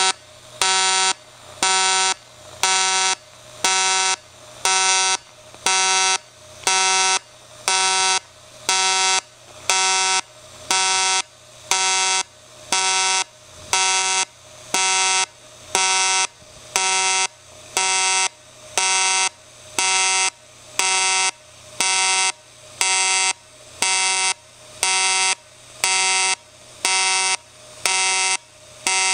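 Everlast 210EXT TIG welder's arc on aluminum sheet, run in pulse mode: a loud electrical buzz that swells and drops about once a second as the current switches between peak and background, with a quieter buzz between the pulses.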